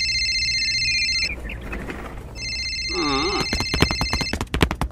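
Telephone ringtone sound effect: a steady high electronic ring of several stacked tones that stops a little over a second in and rings again from about two and a half seconds. Under the second ring come a short squeaky cartoon-like voice and a fast run of clicks.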